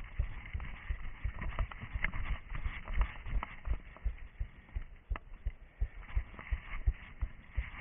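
An orienteer's footfalls on forest ground, picked up by a head-mounted camera as irregular dull thumps, about two or three a second, with scattered faint crackles.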